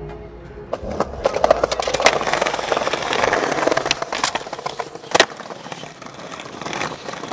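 Skateboard wheels rolling over concrete, a rough rumble with small clicks and clatter, and one sharp clack of the board about five seconds in.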